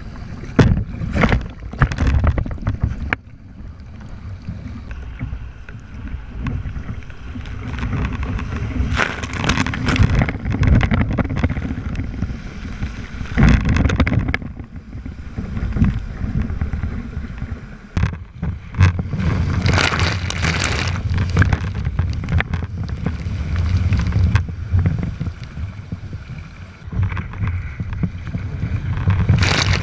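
Choppy sea water splashing and sloshing against a plastic sit-on-top kayak as it is paddled, in irregular surges of spray. Wind rumbles on the microphone underneath.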